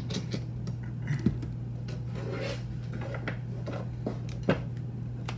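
A deck of cards being picked up and handled on a wooden tabletop: light sliding and rustling of the cards, with two sharp knocks, about a second in and again about four and a half seconds in, over a steady low hum.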